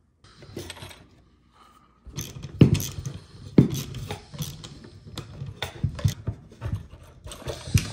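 Hands working small metal hardware on a plastic fuel-pump top hat, fitting wire terminals over its power studs: irregular clicks, taps and rattles of metal on plastic, starting about two seconds in.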